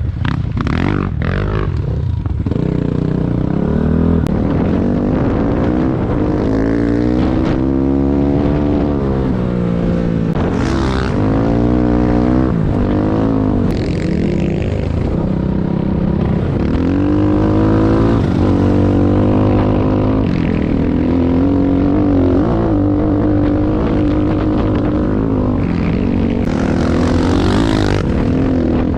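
Enduro motorcycle engine running under load, its revs rising and falling again and again.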